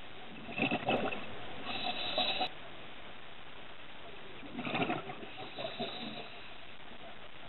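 Scuba regulator breathing heard underwater through a steady hiss: two rounds of breathing and bubbling, about four seconds apart.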